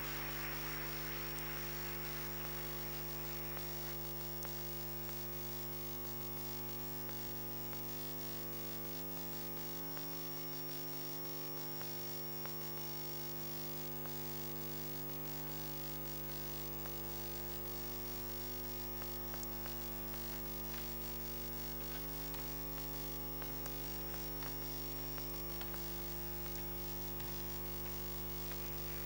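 Steady electrical mains hum, a low buzz with a stack of even overtones, with a faint hiss fading out over the first few seconds.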